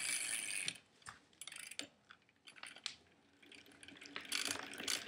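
Rear freewheel hub of a GT Performer BMX coasting, its pawls ticking in faint, uneven clicks. It is a very quiet hub.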